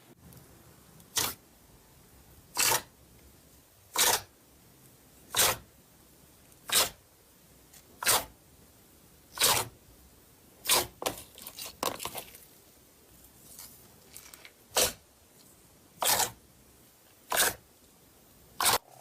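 Slime being worked by hand: a short squishing pop roughly every second and a half, with a run of smaller crackles about two-thirds of the way through.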